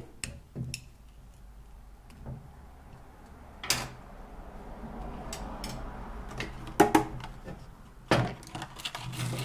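Handling noise: a few sharp clicks and knocks as a small pick works the plastic filler plug out of a hydraulic bottle jack and the jack is moved about on a steel workbench.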